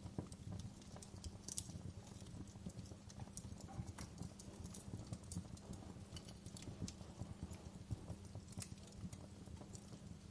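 Wood fire crackling in a fireplace: irregular pops and snaps, a few of them sharper, over a steady low rumble of the burning logs.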